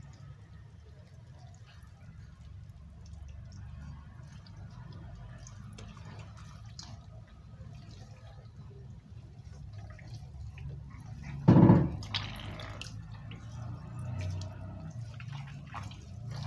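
Water dripping and splashing back into a plastic basin as tripe is wrung and squeezed out by hand, with one sudden loud bump about two-thirds of the way through.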